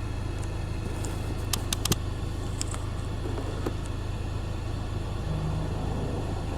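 Steady low hum of a car's engine, heard from inside the car, with a few sharp clicks about a second and a half in.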